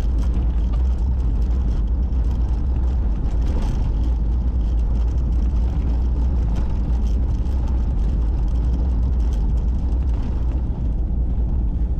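Ford F-150 Raptor pickup driving on a dirt road, heard from inside the cab: a steady low rumble of engine and tyres on the gravel.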